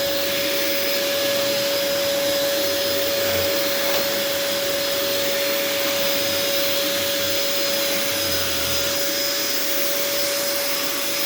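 Hoover WindTunnel Air bagless canister vacuum running steadily on carpet with its brush roll on: a constant whine over the rush of air.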